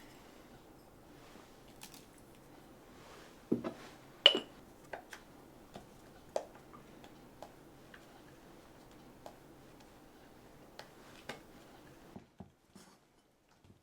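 Dishes and utensils clinking and tapping: a knock and then a sharp ringing clink about four seconds in, followed by scattered lighter taps and clicks.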